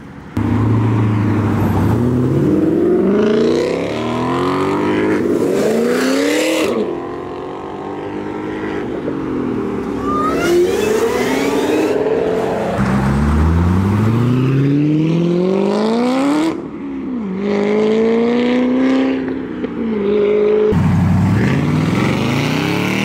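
Several cars accelerating hard one after another, each engine revving up in pitch through the gears and dropping back at the upshifts.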